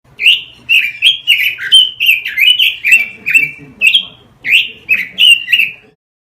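Pekin robin (red-billed leiothrix) singing a fast, unbroken run of short whistled notes, two to three a second, many slurring downward. The song stops just before the end.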